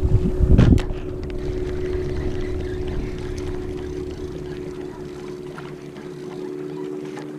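Steady drone of a motorboat engine running at an even speed across the water, heard as a constant low hum. A low wind rumble on the microphone is strong in the first second and fades away about five seconds in.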